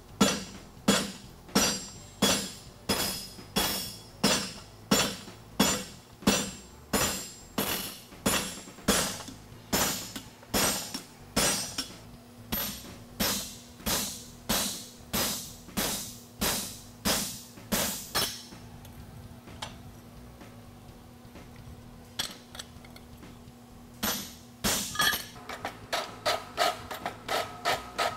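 A farrier's hand hammer striking a red-hot steel bar on an anvil, forging the heel of a horseshoe, about two ringing blows a second. The blows stop for a few seconds, leaving a faint low hum, then start again at a quicker pace near the end.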